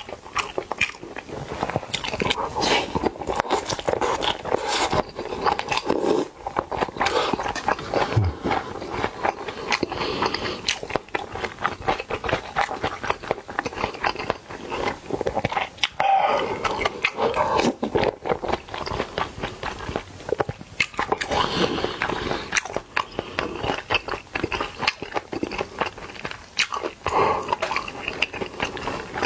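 A person chewing mouthfuls of Korean-style bibimbap rice and spicy kimchi soup, eaten close to the microphone for mouth sounds, with many quick wet mouth clicks.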